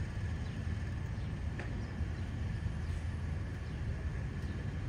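Steady low rumble of distant street traffic, with a faint steady high tone throughout and one faint tick about a second and a half in.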